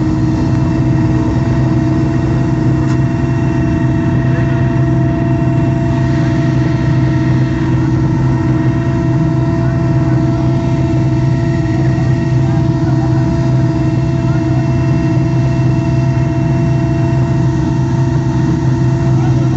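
A vehicle engine running steadily at an unchanging pitch.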